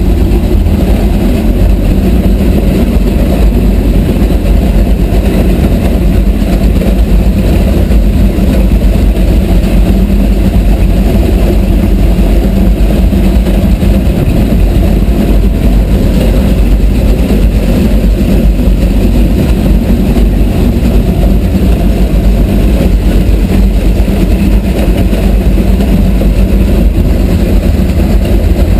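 Twin MerCruiser HP500 big-block V8 gasoline sterndrive engines running steadily, heard from right over the open engine hatch.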